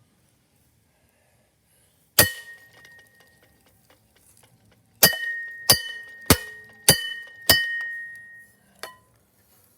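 A Harbor Breeze Builder's Best ceiling fan being struck hard as it is smashed apart. There is one blow, then a quick run of five evenly spaced blows and a last lighter one, each giving a sharp clink that rings on briefly.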